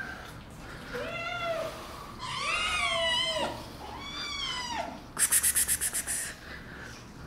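Kittens meowing over and over, four calls that rise and fall in pitch, the longest about a second. About five seconds in, a brief rapid scratchy rattle of about ten strokes in one second, louder than the meows.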